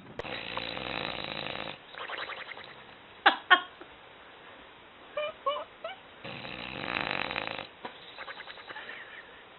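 Bulldog snoring in its sleep: long raspy snores with rattling breaths after them, and a few short high squeaks in the middle, the loudest about three seconds in.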